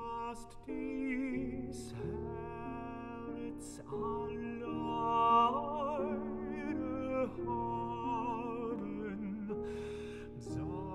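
Tenor singing a German art song with vibrato, accompanied by piano.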